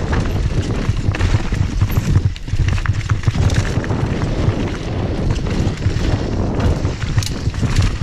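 Mountain bike descending a loose, rocky dirt trail at speed: tyres crunching over gravel and stones, with rapid clicks and knocks from the bike rattling over the rough ground, under a heavy rumble of wind on the microphone. The knocks come thickest near the end.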